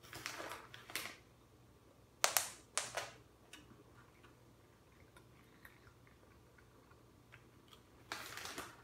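A cat crunching dry treats: three short crackly bursts, the loudest and sharpest about two seconds in, with faint small ticks between them.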